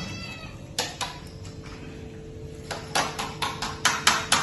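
Metal cooking utensils clinking against a wok and a metal colander: a couple of taps about a second in, then a fast run of sharp clinks, several a second, starting near the end, as boiled tomatoes and chillies are scooped and moved.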